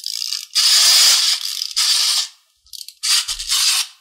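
Clockwork key of a small plastic wind-up toy being wound by hand, a ratcheting click in four spells of turning with short pauses between.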